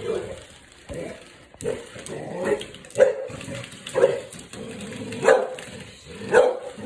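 A dog barking repeatedly, about seven short barks roughly a second apart.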